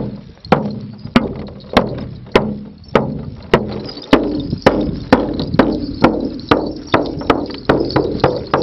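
Shaman's large frame drum beaten in a steady pulse, one dry strike about every half second, quickening a little in the second half.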